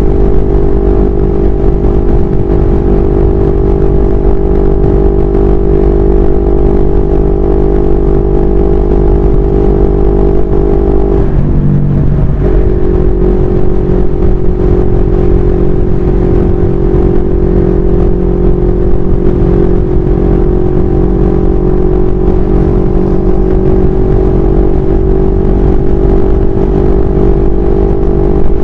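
CFMoto 400NK's parallel-twin engine running steadily at cruising speed, heard from the rider's chest with wind buffeting the microphone. About eleven seconds in, the engine note drops briefly, then comes back and holds steady.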